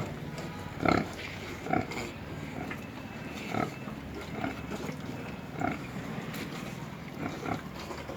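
Pigs grunting: short separate grunts come every second or so, over a steady low hum.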